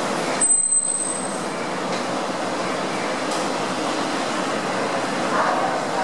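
Steady background rumble of traffic-like noise with a faint constant hum, and a short louder crackle about half a second in.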